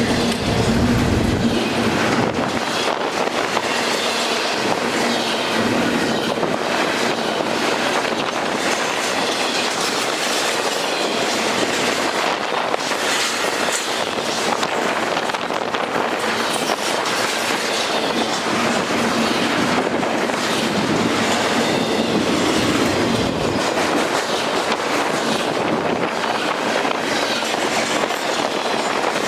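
Freight train cars rolling past at speed, a steady loud rumble of steel wheels on rail with repeated clacking over rail joints.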